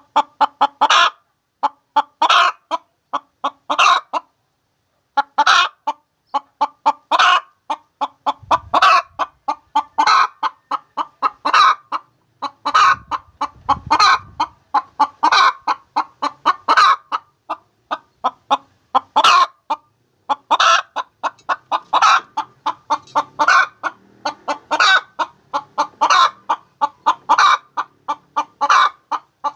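Hen cackling in repeated phrases of quick clucks, each ending in a drawn-out squawk, about one phrase every second and a half. This is the egg song a hen gives around laying.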